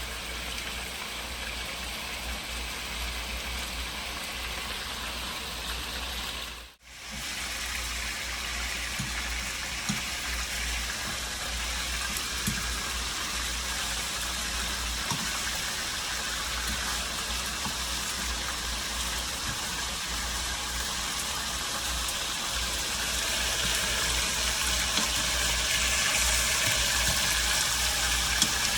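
Oxtail pieces sizzling as they brown in hot oil, with a few light knocks as they are turned. The sizzle cuts out for a moment about seven seconds in and grows louder near the end.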